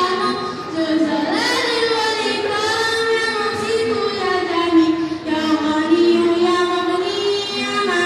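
A single child's voice singing long held notes that slide up and down in pitch.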